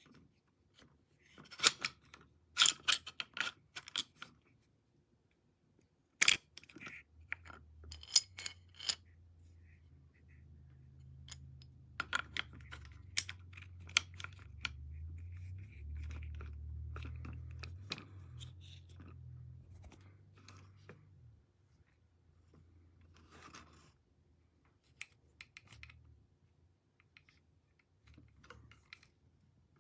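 Scattered clicks, knocks and rustles of equipment being handled, the sharpest knock about six seconds in. A low hum runs through the middle.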